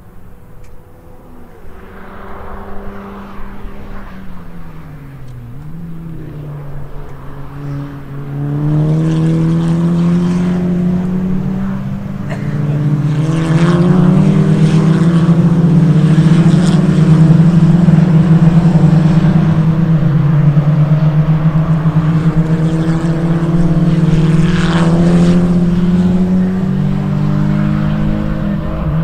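KTM X-Bow race cars lapping the circuit, their engines rising and falling in pitch through gear changes as several cars go by. The sound grows much louder about eight seconds in and stays loud.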